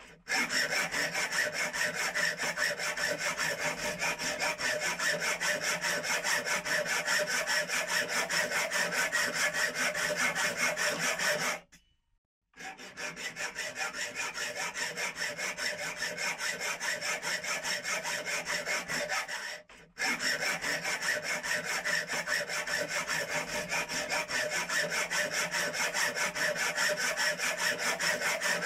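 Circular saw cutting into a plastic computer mouse: a steady, rapidly pulsing rasp that cuts out for about a second around twelve seconds in and briefly again near twenty seconds.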